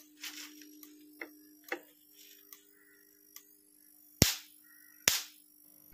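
Mains-powered electric fence energizer for scaring wild boar, firing its high-voltage pulses: two sharp, loud snapping cracks near the end, about a second apart, with fainter ticks earlier. A steady hum comes from the unit. The snaps are the sign of a strong output.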